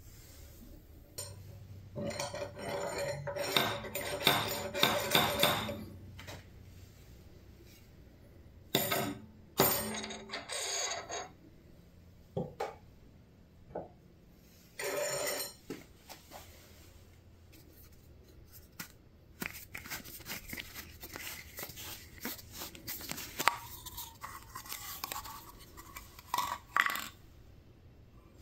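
Steel lathe tooling, a spindle and a collet, clinking and scraping against metal as it is handled, in several short bouts with sharp clicks and a brief ringing tone.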